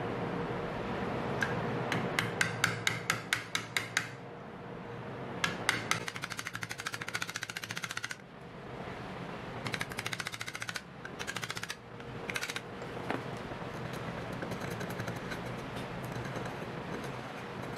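Wood chisel being struck with a hammer to chop out the waste between two saw kerfs in a wooden block clamped in a steel bench vise. A run of sharp, regular taps comes first, then quicker, lighter rattling taps.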